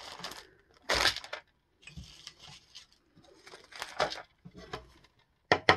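Packaging and a foil-wrapped chocolate egg being handled: irregular crinkling and rustling in short bursts, the loudest about a second in.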